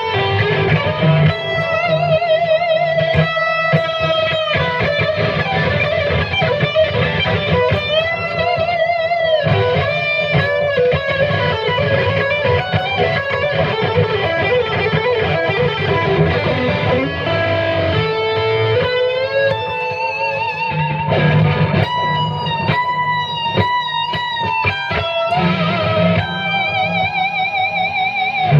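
Epiphone 339 semi-hollow electric guitar played through an amp: sustained, wavering notes with vibrato and string bends, and frequent note changes.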